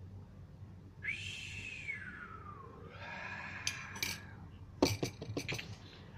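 A man laughing, with a run of sharp clinks of a metal spoon against a ceramic coffee mug about five seconds in. Near the start there is one long call that rises briefly, then falls in pitch.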